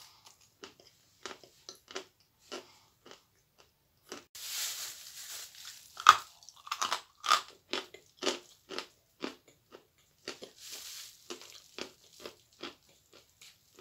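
Close-up biting and chewing of a crumbly sweet: a run of short, crisp chewing clicks, with a louder bite about six seconds in. A paper napkin rustles briefly twice, around four and ten seconds in.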